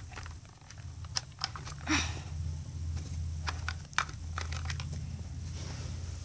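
Small plastic toy figures being handled in and out of a plastic toy car: scattered light clicks and taps of plastic on plastic, with a short louder rustle about two seconds in.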